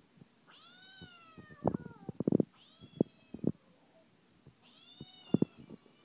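Cat meow ringtone playing: three drawn-out meows that fall in pitch. Several short, sharp knocks and taps come between and under them and are louder than the meows.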